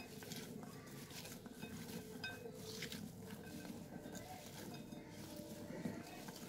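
A hand mixing raw potato sticks in a glass bowl: faint, irregular rustling of the potato pieces, with a few light clinks against the glass.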